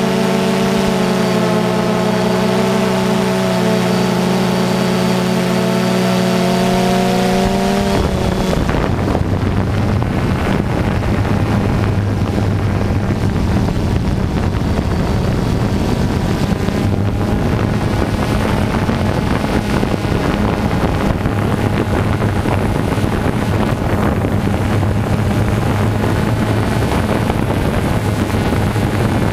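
DJI Phantom 2 quadcopter's motors and propellers heard from the camera on board: a steady whine of several tones for about eight seconds, then a rougher buzz mixed with wind rush on the microphone.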